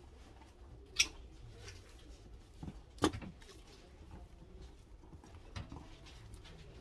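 Hands handling cut-flower stems and foliage on a work table, with soft rustles and knocks and two sharp clicks, about one second and three seconds in.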